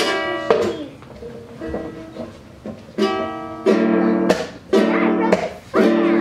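Unevenly strummed chords on a ukulele, each strum ringing and fading: one at the start, a quieter stretch, then four more strums close together in the second half.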